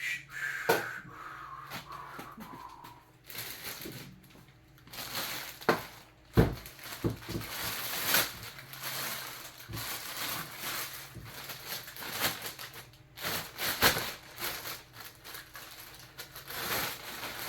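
Packaging crinkling and rustling in irregular bursts, with scattered clicks and knocks from items being handled. A faint whine falls in pitch over the first few seconds.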